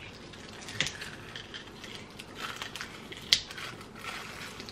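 Small crunches and crackles of frozen pickle-flavoured freeze pops being bitten and sucked out of their plastic sleeves, scattered and irregular, with the sharpest click about three seconds in.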